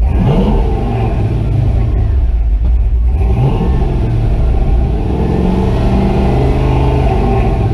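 Chevy 4x4 truck's LS-swapped 6.0 L LY6 V8 accelerating under way. The revs climb at the start and again about three seconds in, with the engine running steadily in between.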